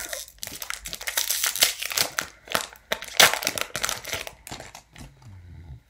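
The foil wrapper of a trading-card pack crinkling as it is torn and pulled open by hand. It makes a dense run of crackles that thins out near the end.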